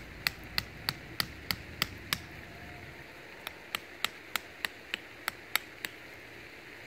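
A wooden stake with a fire-hardened top being driven into the ground with light, sharp taps of a hand tool, about three taps a second. Two runs of taps, with a pause of about a second and a half between them.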